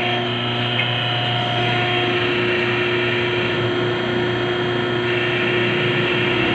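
Electric hydraulic power unit running: its motor and pump give a steady hum with a high whine as they push oil into a rebuilt hydraulic cylinder under test, extending the rod.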